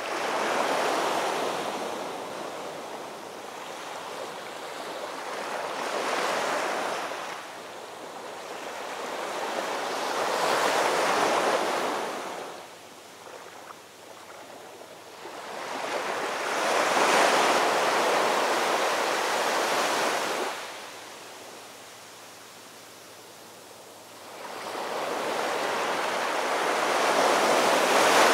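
Ocean surf: waves breaking and washing in one after another, about five slow surges, each swelling and fading over a few seconds, with a longer lull between the last two.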